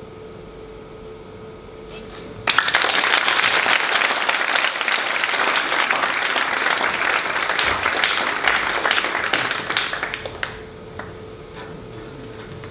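Audience applauding, breaking out suddenly about two and a half seconds in and dying away about eight seconds later.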